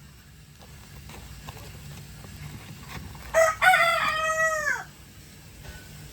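Rooster crowing once, a little over three seconds in: a short first note, then a long drawn-out note that falls away at the end.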